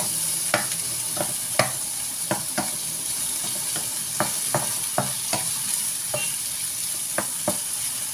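Stir-fry of shrimp, sausage and vegetables sizzling steadily in a non-stick frying pan. A wooden spatula knocks and scrapes against the pan at irregular moments, roughly twice a second.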